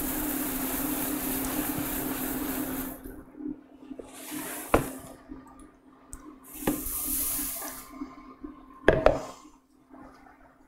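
Crisp rice cereal poured from its box into a glass bowl: a steady rustling hiss for about three seconds, then two shorter pours, with a few sharp knocks of the bowl in between.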